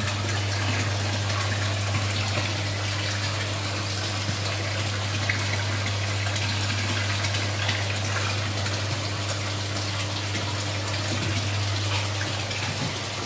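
Water running steadily into a fish pond, a constant rush with a steady low hum underneath.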